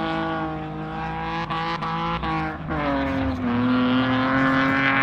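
Drift car's engine held at high revs through a long slide with its tyres smoking, one steady note that breaks briefly a few times near the middle, then settles slightly lower and holds.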